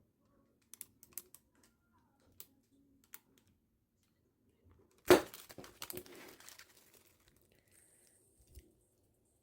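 Light scattered clicks and taps of kitchen handling, then a sudden loud knock about five seconds in, followed by a second or so of rustling clatter that fades out.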